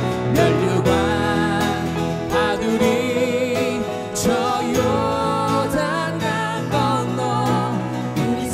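A man and a woman singing a Korean hymn to acoustic guitar accompaniment.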